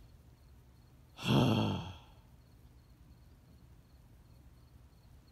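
A man sighs heavily once, a single long breathy exhale about a second in, in dismay at a camera dropped in the water.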